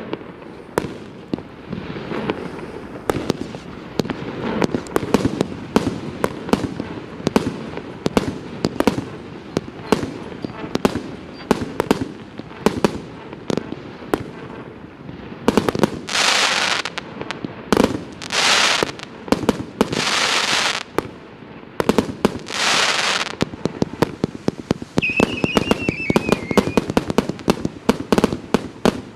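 Consumer fireworks cake, a 149-shot multi-calibre battery, firing: rapid pops and bangs several times a second throughout. Four long hissing bursts of about a second each come in the second half.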